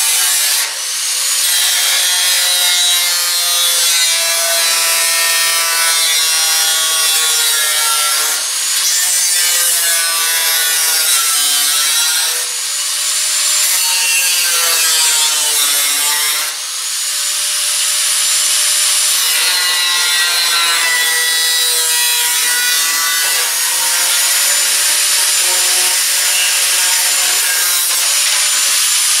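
Electric angle grinder with a thin cutoff wheel cutting through the steel sheet of a 1968 Triumph TR250's lower front fender. It makes a loud, continuous grinding screech, and the motor's whine rises and falls as the disc bites into the metal and eases off, with a few brief dips along the way.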